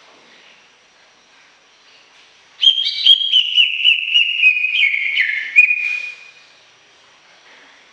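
Cucak ijo (green leafbird) singing one loud whistled phrase of about three and a half seconds, beginning some two and a half seconds in. It is a quick run of clear notes that steps down in pitch toward the end, over faint background hiss.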